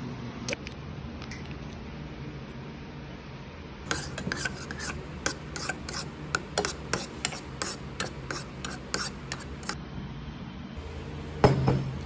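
A rapid, irregular run of light clicks and scraping from small hard objects being handled, lasting several seconds, with one louder knock near the end.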